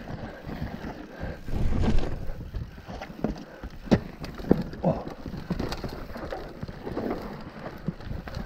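Mountain bike descending a rocky dirt singletrack: tyres rumbling over dirt and roots, with sharp knocks and clatter as the bike hits rocks, loudest about two seconds in.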